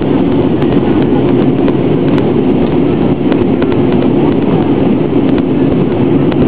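Steady cabin noise of an airliner in flight, heard from a window seat: the jet engines and the rush of air over the fuselage, an even, low, loud hum.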